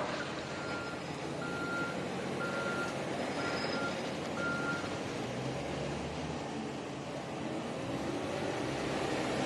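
Backup alarm of a heavy vehicle beeping five times, about once a second, then stopping, over a steady rumble of machinery.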